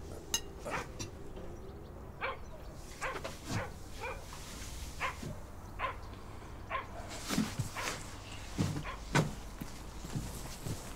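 A dog barking again and again in short, separate barks at irregular intervals, over a low steady background hum.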